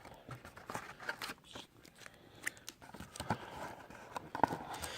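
Scattered light clicks and rustling of a cardboard card box and its foil packs being opened and handled.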